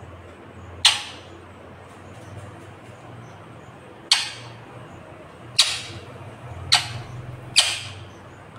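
Indian ringneck parakeet giving five short, harsh squawks at uneven gaps, each one sudden and brief.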